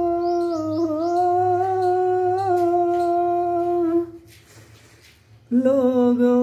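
A man humming a song's melody, holding one long steady note for about four seconds, breaking off for a breath, then taking up a new, lower held note.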